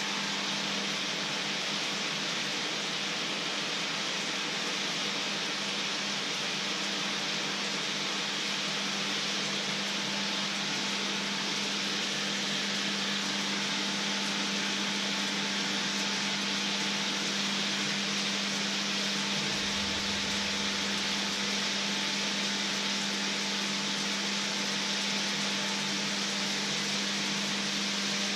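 Hot fat sizzling and bubbling steadily in a frying pan on the hob, with a constant low hum underneath.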